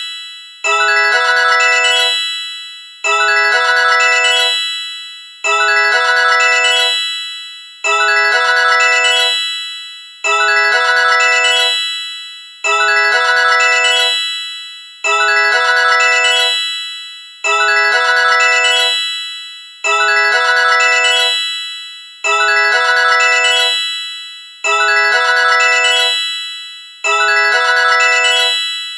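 Sony Ericsson T610 polyphonic ringtone: a short, bright melody in a glockenspiel-like mallet tone, looping about every two and a half seconds, each phrase ringing out and fading before the next begins.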